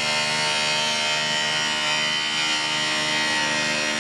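Electric angle grinder grinding the steel of a grooved tram rail, a steady whine that holds without a break.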